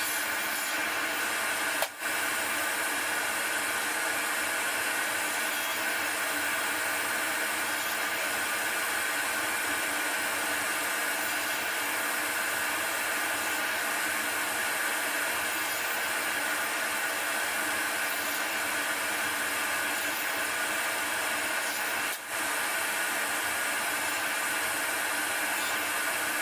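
Table saw running steadily with its blade spinning, a constant motor-and-blade whine. It drops out very briefly twice, about two seconds in and near the end.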